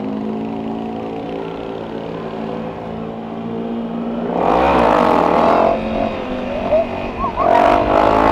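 Honda CRF250L's single-cylinder engine running at a steady road speed, then rising in two louder surges of revving with rushing noise, about four and seven seconds in.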